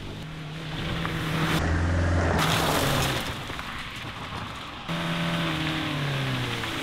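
Renault Clio hatchback's engine revving hard as it accelerates along a dirt track, with the tyres throwing up dirt and gravel. The engine note rises and falls, and the sound changes abruptly twice.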